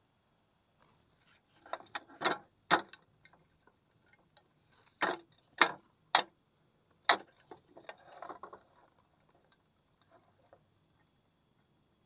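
Clear plastic insect box being handled: sharp plastic clicks and knocks, about eight in three clusters, followed by softer rustling.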